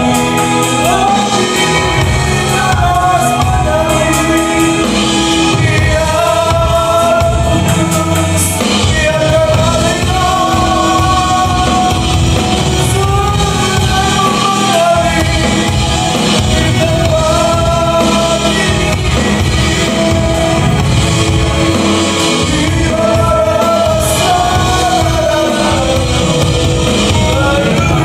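Gospel worship song: sung melody lines over band accompaniment.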